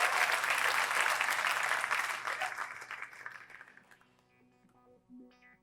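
Studio audience applauding, dying away over about four seconds, then a few soft guitar notes as the band begins to play.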